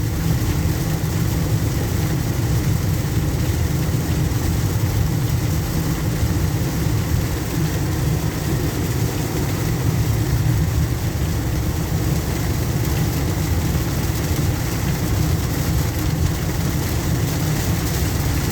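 A car driving on a rain-soaked, flooded road: a steady low rumble of engine and tyres under a constant hiss of rain and water spray.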